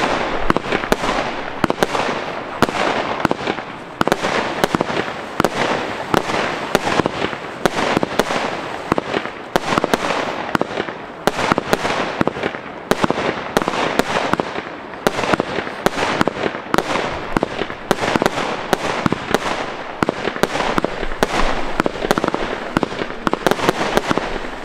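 Weco Dynasty 147-shot compound fireworks cake firing: shots follow one another in quick succession, several a second, without a pause.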